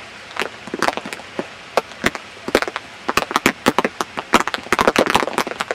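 Heavy rain: big drops tapping irregularly on or near the microphone over a steady hiss, the taps coming thicker in the second half.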